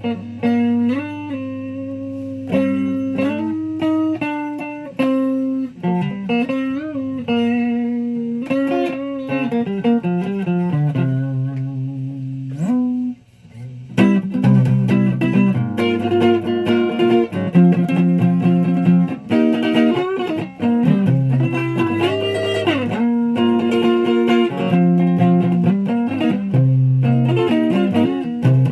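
Guitar playing melodic single-note lines with bent and sliding notes. It breaks off briefly about halfway through, then resumes louder and fuller.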